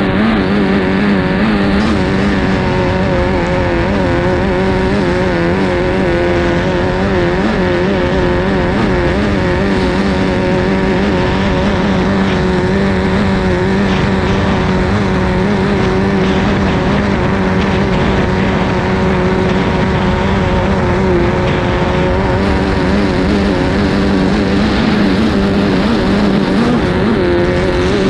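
Formula 2500 racing hydroplane's engine running hard at a steady high speed, heard from on board, with rushing wind and water noise. The engine pitch wavers slightly as the boat rides the chop.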